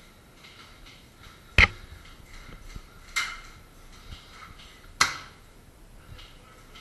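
Three sharp airsoft gun shots, about a second and a half apart, the first the loudest.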